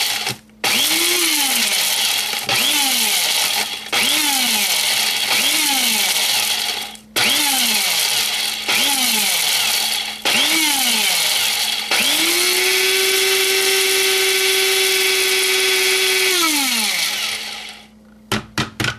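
Small electric blender pulsing dried chilli peppers into powder: about eight short bursts, each motor whine rising and falling, then one steady run of about four seconds that winds down. A few light knocks near the end.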